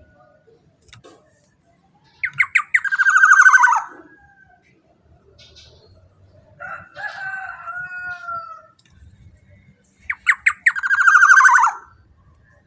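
Black-naped oriole calling: twice, a few quick notes run into a loud harsh, buzzy call that falls in pitch, with softer whistled gliding notes in between.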